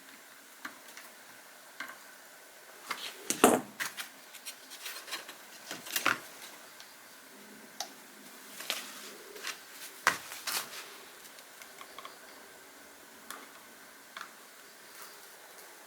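Scattered clicks, taps and knocks of tools and small parts being handled on the lamp fixture under repair, with louder knocks about three and a half, six and ten seconds in.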